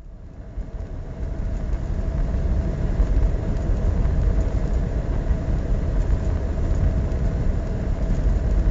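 Semi-truck cab noise while cruising at highway speed: a steady low engine and road rumble with a constant drone above it, fading in over the first two seconds.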